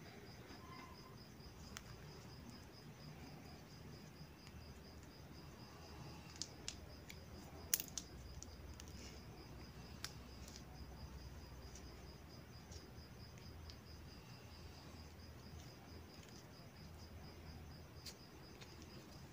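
Crickets chirping in a steady, evenly pulsed high trill. A few sharp clicks and snaps from fingers handling small rubber balloons cut through it, the loudest about eight seconds in.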